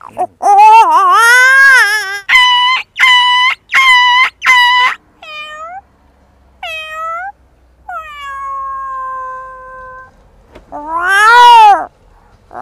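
A man imitating a cat with his voice: a string of high meows, some short and clipped, some long and drawn out, ending in one loud rising-and-falling yowl.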